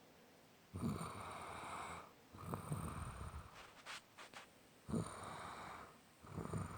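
Snoring in sleep: about four snores roughly two seconds apart, each a low rattle trailing into a breathy hiss, with a few short clicks near the middle.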